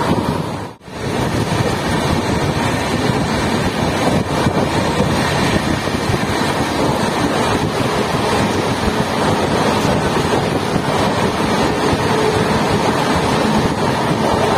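Wind buffeting the microphone at the open door of a fast-running LHB express coach, over the steady running noise of the train. The sound drops out sharply for a moment just under a second in.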